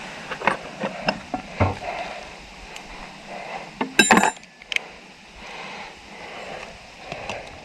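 Metal tools and fittings clinking and clattering as they are handled and rummaged through, with one sharp, ringing metallic clank about four seconds in.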